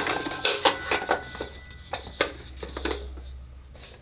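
Hard plastic BB-8 toy being handled: irregular light clicks and rubs of plastic that thin out toward the end.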